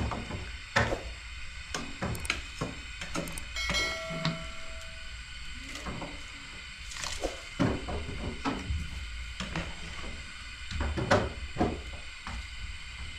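Irregular knocks and thuds, struck or handled objects at an uneven pace, with a brief ringing tone about four seconds in.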